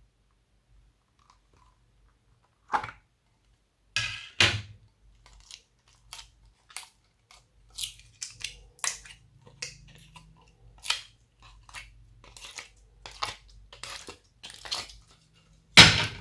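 Glossy slime being squished and mixed by hand: irregular wet pops and crackles, starting after a couple of quiet seconds, with the loudest squelch near the end.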